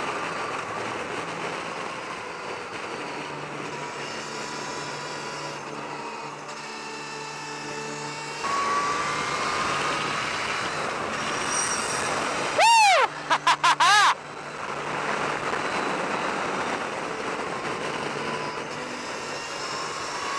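Motorcycle engine and wind rush at speed, heard from on board the bike; about eight seconds in the engine note steps up and rises as the bike accelerates. A few very loud short bursts hit the microphone about two-thirds of the way through.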